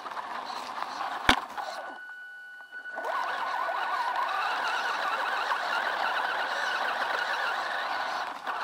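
Electric motor and gearbox of a WLtoys 10428 RC truck whining as it drives over leaf litter and dirt, the pitch wavering with throttle. There is a sharp knock about a second in, then a short lull with only a steady high whine before it speeds up again.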